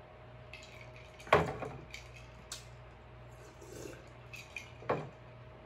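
A person drinking iced lemon water from a glass jar at a close microphone: two loud gulping swallows, about a second in and near the end, with small clinks of ice against the glass.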